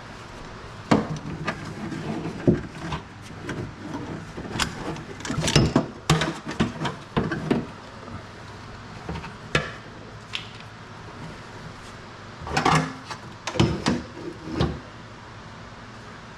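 Irregular clicks, knocks and light rattles of parts being handled and fitted inside a car door, with louder clusters of knocks about five to seven seconds in and again around thirteen to fifteen seconds in.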